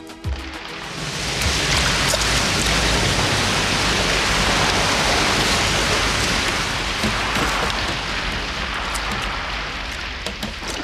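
A flood of water gushing out of an ambulance van's opened rear door and splashing onto the pavement. The rush builds within the first second or so, stays loud, then slowly tapers off toward the end.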